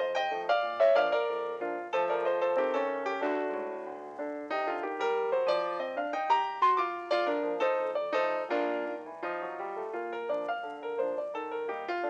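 Background piano music: a continuous melody of single struck notes.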